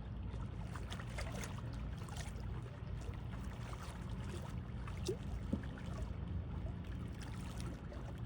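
Waterside ambience: a steady low rumble of wind on the microphone, with faint water lapping and scattered small clicks and taps.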